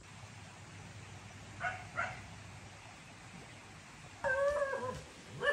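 A pet animal calling: two short high calls about a second and a half in, then a longer, slightly wavering call near the end.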